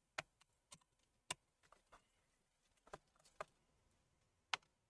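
A few faint, sharp clicks and taps, irregularly spaced, from a small Torx screwdriver and its screws being worked against a laptop's metal bottom cover; the loudest click comes near the end.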